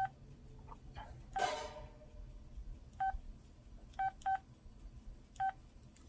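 Keypad beeps of an LG Scoop (AX260) phone as its menu keys are pressed: five short, identical single-pitched beeps at uneven spacing, two of them in quick succession about four seconds in. A brief, louder noise comes about a second and a half in.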